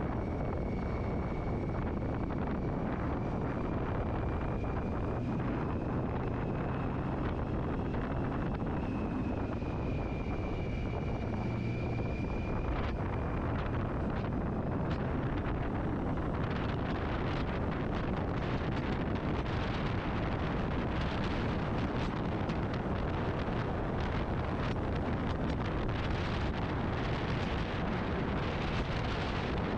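Motorcycle riding at speed: wind rushing and buffeting over the microphone with the engine and road noise underneath. A thin high whine runs through the first half, and the wind buffeting gets heavier in the second half.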